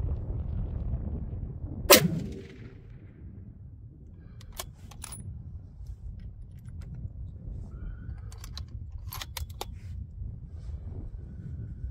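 A 6.5 PRC bolt-action rifle, a Bergara B-14 HMR Ridgeline, fires one loud shot about two seconds in, with a short echo. Later come a few sharp metallic clicks of the bolt being worked, over low wind rumble on the microphone.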